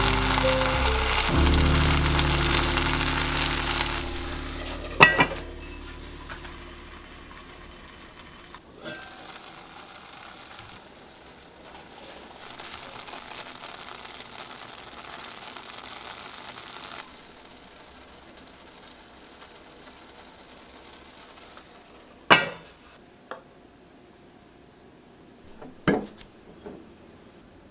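Food sizzling in a hot pot, loud for the first few seconds and then dying down, with a quieter stretch of sizzling later on. A few sharp clinks of a utensil or lid come in between.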